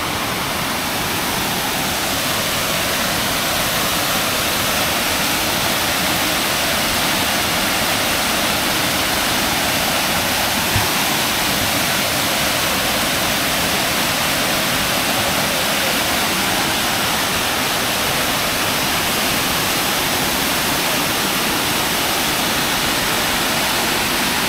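Small man-made waterfall cascading down stone steps and over rocks into a shallow stream: a steady rush of falling water.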